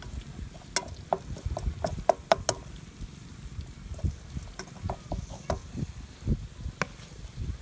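Irregular light clicks and knocks of objects being handled, closely bunched in the first few seconds and sparser afterwards.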